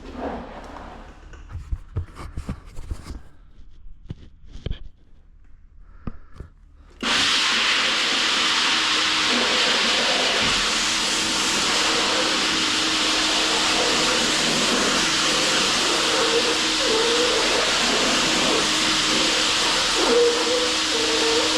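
A few knocks and handling sounds, then about seven seconds in a power floor sander switches on abruptly and runs steadily with a loud hissing noise and a faint motor hum.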